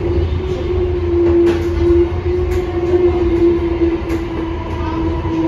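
Siemens S70 light-rail car running at speed, heard from inside the passenger cabin: a steady whine over a low rumble, with a few sharp clicks from the wheels on the rail.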